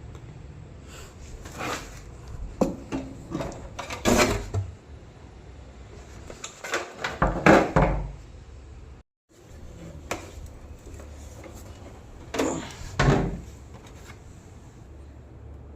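Irregular knocks and clatter of hard objects being handled, in three bursts: from about a second in to four seconds, around seven to eight seconds, and again near thirteen seconds, over a low steady hum. The sound cuts out briefly midway.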